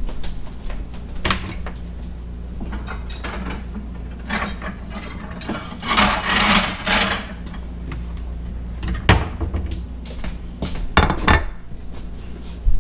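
Kitchen cabinet door opened and dishes taken down from a shelf: scattered clicks and knocks, a rattling clatter about six seconds in, then several sharp knocks near the end. A steady low hum runs underneath.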